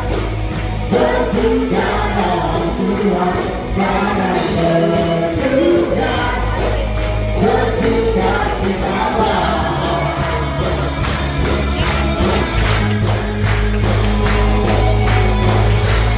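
Gospel-style music with singing, a steady percussion beat and heavy bass.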